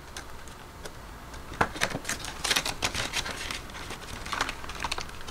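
Paper bills being handled: rustling and crinkling with scattered sharp taps and clicks, busiest about a second and a half in and again around the middle.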